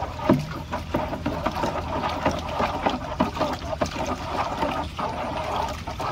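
Water in a plastic drum being stirred hard with a PVC pipe, churning and sloshing steadily with many short sharp splashes, as hydroponic fertiliser B stock dissolves in it.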